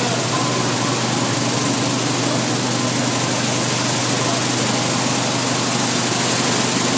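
Stainless-steel nut-processing line with a bucket-elevator conveyor and hopper running steadily: a low motor hum under a constant hiss of machine noise.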